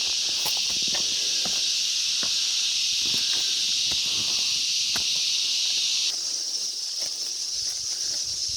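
Cicada chorus: a loud, steady, high-pitched buzzing hiss. About six seconds in, part of the chorus stops and the sound thins and becomes slightly quieter. Scattered light cracks and rustles sound beneath it.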